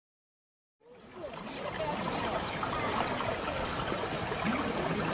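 Stream water running steadily over rocks, fading in about a second in.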